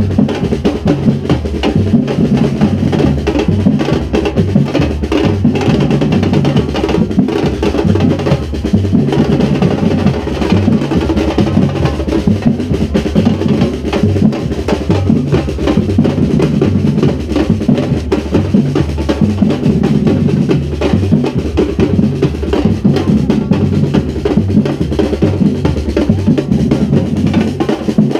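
Drum band of waist-slung bass drums and snare drums playing a continuous, steady rhythm, loud and up close from among the drummers.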